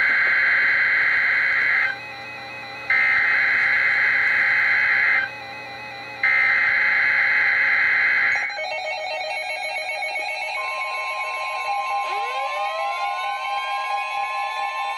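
NOAA Weather Radio sending its EAS/SAME digital header: three loud bursts of warbling data tones, each about two seconds long with about a second between them. This is the coded signal that opens a new alert. Then weather radio receivers start sounding their alarms with several tones at once, a steady warning alarm tone comes in about ten seconds in, and rising tones sweep up near the end.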